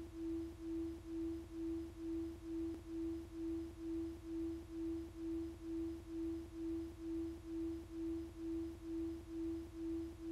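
A single pure tone in a soundtrack drone, pulsing evenly a little over twice a second, over a faint low hum.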